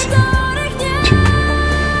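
Background music: a pop song with long held synth tones over a steady low bass, with a little singing.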